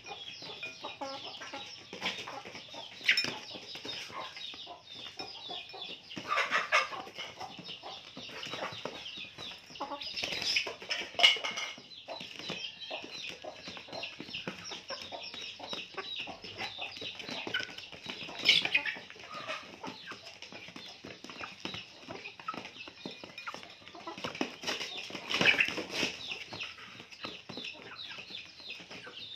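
Young chickens clucking and peeping again and again, with several louder calls standing out, over a constant patter of small clicks and taps from animals eating rice off a plastic mat.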